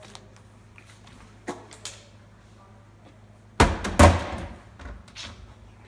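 A plastic water bottle tossed in a bottle-flip attempt knocking and landing: two light knocks, then two loud thuds about half a second apart a little past midway, with some lighter clatter after.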